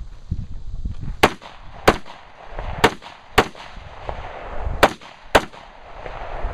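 AR-15 rifle fired six times in three pairs of quick shots, the two shots of each pair a little over half a second apart, with a low rumble between the shots.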